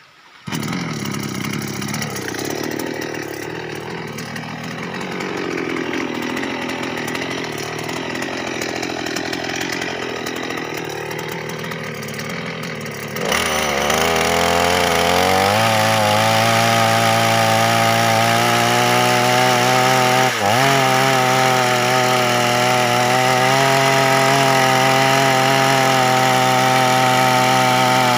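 Petrol chainsaw starting about half a second in and idling unevenly, its pitch wavering. About thirteen seconds in it revs up to a steady high pitch as the bar is put to a log, with a brief dip in pitch about twenty seconds in.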